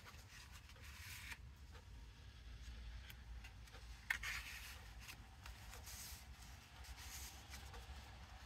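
Faint rustling of paper as the pages of a small handmade junk journal are turned and handled, in a few short brushes, with a light click about four seconds in.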